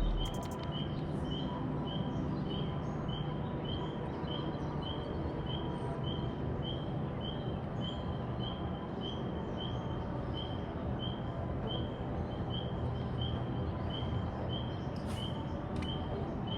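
Outdoor ambience with a high chirp repeating steadily about twice a second, over a constant low rumble.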